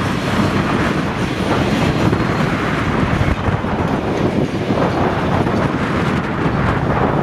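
Binliner freight train of flat wagons carrying waste containers rolling past behind a class 294 diesel locomotive, wheels clattering steadily over the rails.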